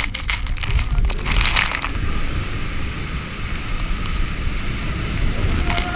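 Water rushing and splashing under a raft riding down a water slide, with spray crackling against the camera for the first two seconds, then a steady rush of water with a low rumble.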